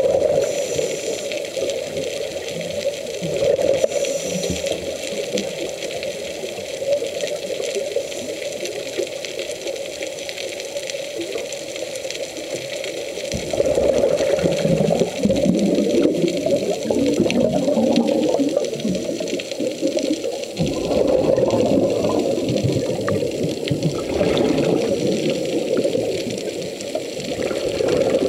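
Muffled underwater sound picked up through a camera's waterproof housing: a steady rush and gurgle of water, getting louder for two long stretches from about halfway.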